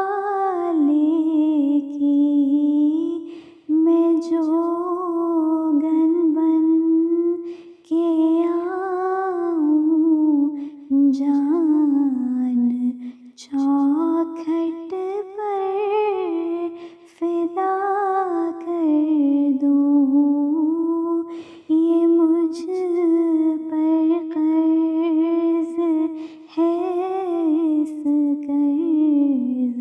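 A woman's voice singing an Urdu naat without instruments, in long melodic phrases that glide up and down, with short pauses for breath every few seconds.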